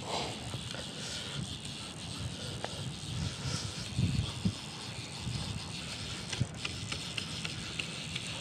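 Click-and-pawl drag of a fly reel ticking irregularly while a hooked fish is played on the line, with a few dull handling knocks about halfway through.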